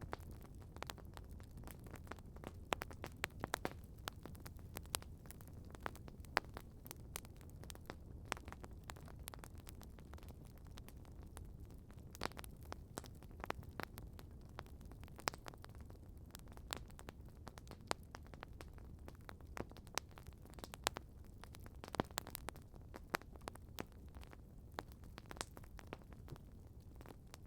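Wood campfire crackling: irregular sharp pops and snaps, several a second, over a low steady rumble of burning.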